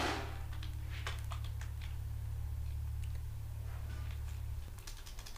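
Computer keyboard keystrokes, a few scattered light clicks, over a steady low hum that drops away about four and a half seconds in. A brief rush of noise comes right at the start.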